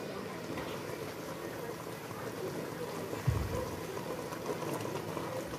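Dried-fish stew simmering in a pot over low heat, with a steady soft bubbling. A single dull low thump about three seconds in.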